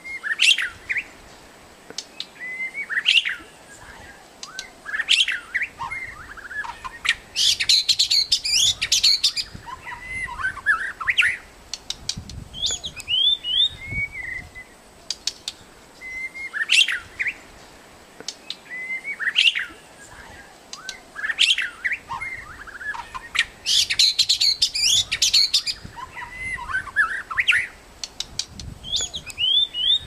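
White-rumped shama in full song: a varied run of clear whistled phrases, some rising and some falling, broken by short pauses. Twice a burst of rapid, harsh, high trilling notes is woven in.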